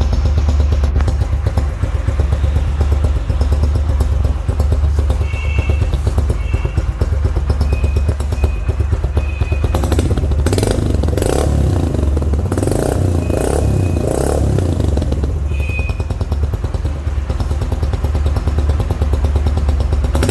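Yamaha YB125Z DX's single-cylinder four-stroke 125 cc engine idling steadily, with a few short high-pitched beeps partway through.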